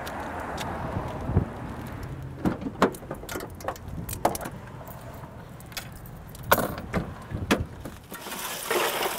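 Scattered knocks and clicks of a van's rear doors being opened and gear inside being handled, one sharp knock every second or so. Near the end a steady rattle of loose ice sets in.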